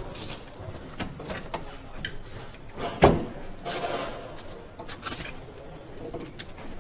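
Assembly-hall clatter: scattered clicks and knocks of tools and parts being handled, with one loud knock about three seconds in.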